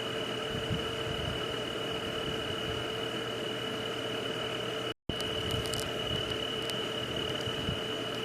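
Steady night-ambience background: an even hiss carrying a continuous high tone and a lower hum. It drops out to silence for a split second about five seconds in, then resumes unchanged.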